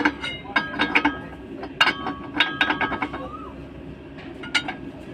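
Metal parts and tools clanking and clinking with a ringing tone, in two quick clusters and one last strike near the end, during work on a truck's propeller-shaft universal-joint cross and centre bearing. A steady low hum runs underneath.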